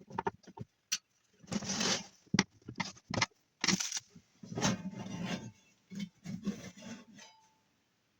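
Clicks, knocks and scraping of a heavy electronic unit's casing and parts being handled while it is opened up, with several longer scrapes in the middle; it stops about seven seconds in.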